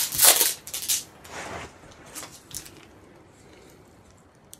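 Handling noise as the camera and gear are moved: a loud rustle for about a second and a half, then a few light clicks and small knocks, settling to a quiet room.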